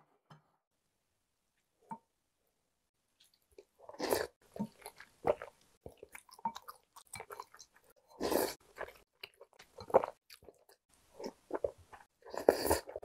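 Close-miked eating: a few faint taps of wooden chopsticks on a ceramic bowl, then from about four seconds in, mouthfuls of rice in chicken yukgaejang soup being taken from a wooden spoon and chewed. The loudest mouthfuls come about four, eight and a half and twelve and a half seconds in.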